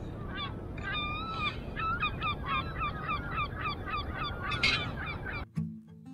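Oystercatcher calling in a fast run of loud, sharp piping notes, about four or five a second, over a steady low background rush. Acoustic guitar music cuts in just before the end.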